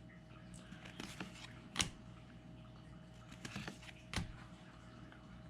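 Pokémon trading cards being handled and flipped through one by one: faint sliding and rustling with a few sharp card clicks, the loudest about two seconds in and again about four seconds in.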